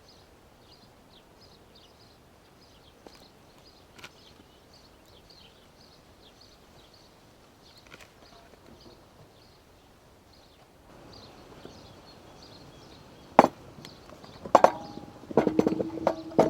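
Faint, rapidly repeated small bird chirps over quiet outdoor ambience. About thirteen seconds in comes a loud knock. It is followed by a run of clattering knocks of cookware and utensils, with a ringing metallic tone.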